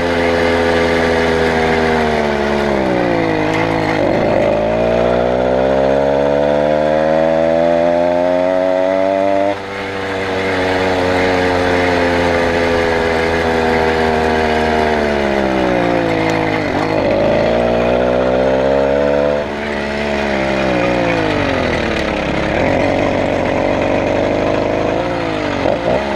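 Stock two-stroke motorized-bicycle engine running under way. Its pitch climbs and then falls several times as the throttle is opened and eased off, with brief drops in level when it is let off.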